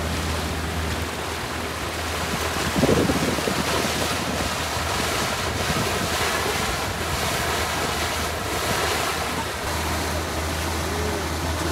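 Rush of water along a moving passenger boat's hull and wind on the microphone over a steady low engine hum. About three seconds in there is a brief louder sound.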